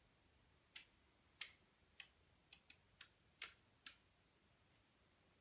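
About eight sharp, irregularly spaced clicks from a home-built relay computer's front panel, as an instruction is switched into memory and the program counter is advanced.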